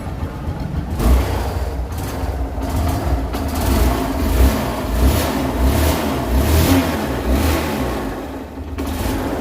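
Hero Karizma R motorcycle engine running and being revved in repeated throttle blips, about one a second, easing back near the end.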